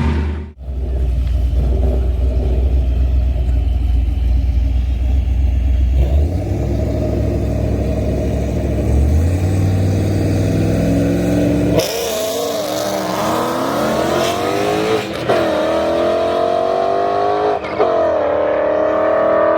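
Gen 3 Coyote 5.0 L V8 in a Mustang, breathing through long-tube headers, an X-pipe and factory mufflers, rumbling at low revs with the revs stepping up twice. About twelve seconds in it pulls hard, revs climbing, with two sharp drops as it shifts up a gear.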